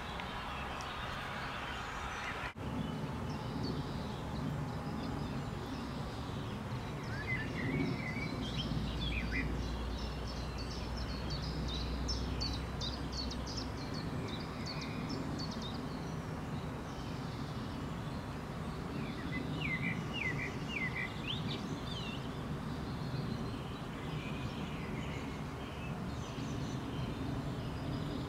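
Outdoor ambience: a steady low background rumble with small birds chirping and twittering in two spells, the first about a third of the way in and the second about two thirds of the way in.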